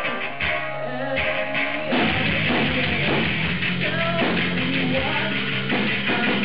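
Live rock band playing: a female singer with electric guitar and drum kit. About two seconds in, the band's sound becomes fuller and louder as the full kit and cymbals come in.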